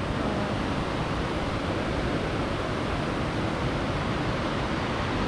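River rapids rushing over rocks, a steady even rush of white water.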